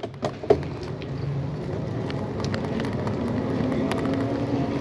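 Road noise while riding a bicycle through city traffic: a steady low rumble with a few light clicks near the start and a low steady hum that comes in about halfway and grows slightly louder.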